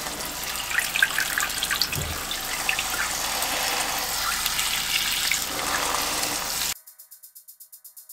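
Water from a kitchen tap running and splashing into a pot of chicken feet in the sink. It cuts off suddenly near the end.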